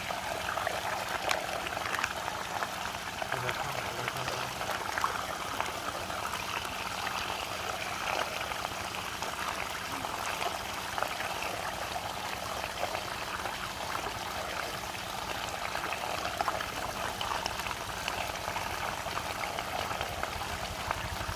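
Water swirling and draining steadily down a large whirlpool vortex, an even, unbroken water sound.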